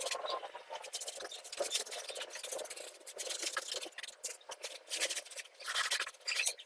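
A hand tool scraping and scratching a surface in short, irregular strokes.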